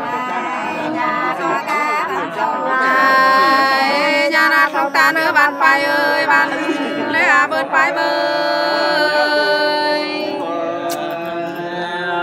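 Nùng sli folk singing: voices in long, wavering, drawn-out notes.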